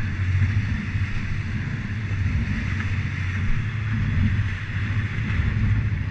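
Twin Suzuki 350 V6 four-stroke outboard motors running steadily at cruising speed with the boat underway, a low, even engine drone under the hiss of water rushing past the hull.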